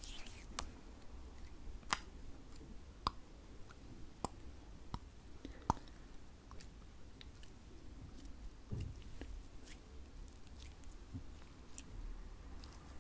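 Close-miked slippery hands rubbing and pressing together, making irregular sticky clicks and soft squelches, with a duller thud about nine seconds in.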